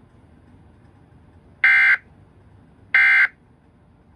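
Emergency Alert System end-of-message (EOM) signal: two short, identical bursts of SAME digital data tones about 1.3 seconds apart, each lasting about a third of a second, marking the end of the warning broadcast.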